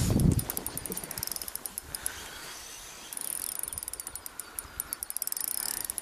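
Spinning reel ticking rapidly while a hooked taimen is played on the rod, after a low thump right at the start.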